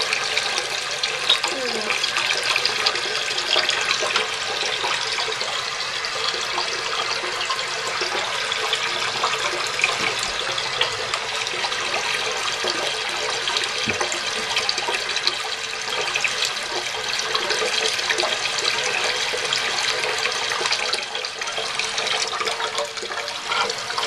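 Toilet tank refilling through an early-to-mid-1980s Fluidmaster 400A fill valve: a steady hiss of running water with light splashing into the tank.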